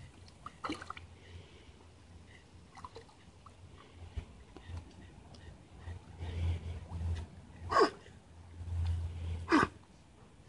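A dog wading with its nose in the water gives three sharp snorts, blowing water out of its nose: one a moment in, two louder ones near the end. A low rumble runs under the last two.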